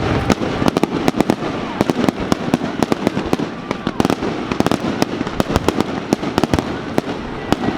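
Fireworks going off in quick succession: a dense run of sharp cracks and bangs, several a second, with no pause.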